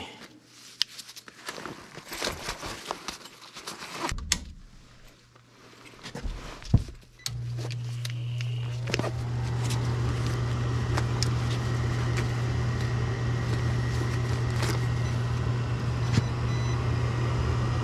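A few seconds of tool clatter and clicks, then a gas furnace's draft inducer motor starts suddenly about seven seconds in. It winds up in pitch and settles into a steady hum: the start of the furnace's ignition sequence once power is restored. A few short high beeps come near the end.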